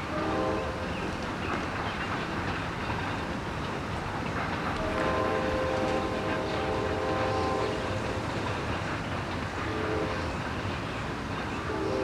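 Diesel freight locomotive's multi-chime air horn sounding over the steady rumble of the moving train: a short blast at the start, a long blast of about three seconds in the middle, then short blasts near the end.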